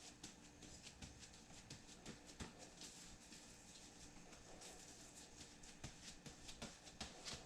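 Near silence with faint, irregular small taps and clicks, the handling noise of coating a furnace's ceramic-fibre lining with liquid rigidizer.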